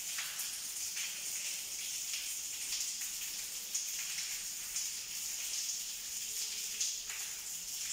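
Water leaking down through the building and splashing onto a flooded stairwell floor: a steady hiss of running water with sharper drips now and then.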